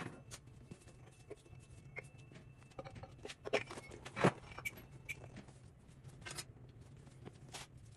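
Metal tools and engine parts clinking and knocking as they are handled during an engine teardown, over a steady low hum. A sharp metallic clink at the start rings on briefly, and the loudest knock comes about four seconds in.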